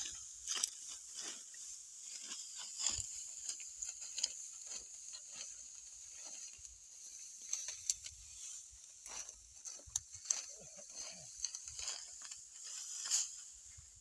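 Dry, ripe wheat stalks rustling and snapping as they are grabbed and cut by hand, an irregular run of short crisp crackles and swishes.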